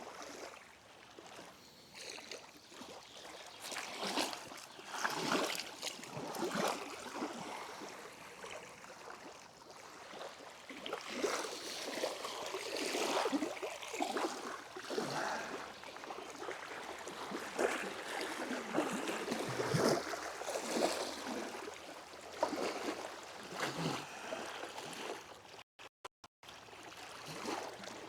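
Outdoor ambience at the water's edge: an irregular rushing noise that swells and fades every second or two, with no steady tone.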